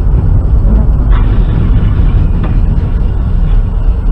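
Steady low road and engine rumble of a car driving at highway speed, picked up by a dashcam inside the cabin, with a couple of faint ticks.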